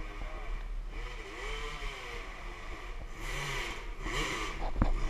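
Dirt bike engines revving up and down, their pitch rising and falling, over a steady low rumble. A sharp click comes near the end.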